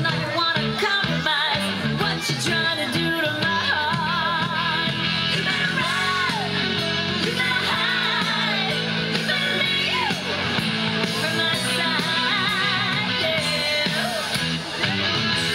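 Rock song with a singer and guitar, playing steadily; the singing voice wavers with vibrato on held notes.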